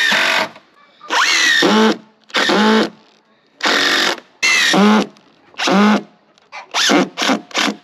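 Cordless drill driving screws into wooden roof framing: about six runs of half a second to a second, each whining up in pitch as the motor spins up, then three quick short bursts near the end.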